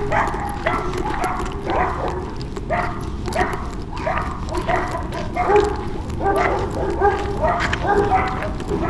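A dog barking and yipping over and over, short calls coming about once or twice a second.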